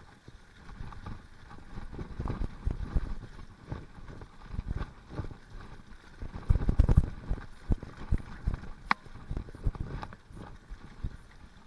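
Mountain bike riding fast down a wet, muddy dirt trail: tyres on the mud, with the bike rattling and knocking irregularly over bumps, loudest in two rough patches, and one sharp click about nine seconds in.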